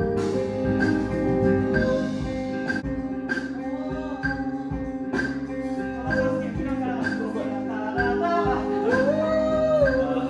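A band playing: held chords over a steady beat with a stroke about every second, and a singing voice gliding over it, clearest near the end.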